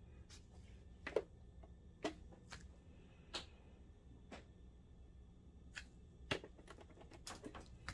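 Sharp plastic clicks from pressing the buttons on an Optoma HD180 projector's top keypad, scattered at first and then several in quick succession near the end. The keypad does not respond, which the repairer puts down to a damaged or unplugged keypad cable.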